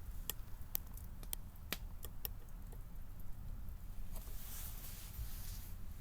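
Wood fire crackling, with several sharp, irregular pops in the first couple of seconds and a soft hiss later on.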